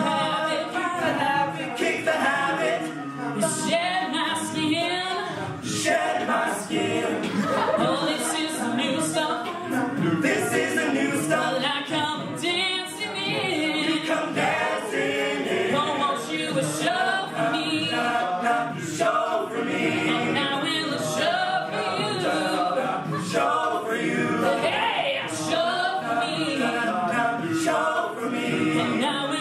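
Male a cappella group singing through microphones: a lead voice over several backing voices, with no instruments.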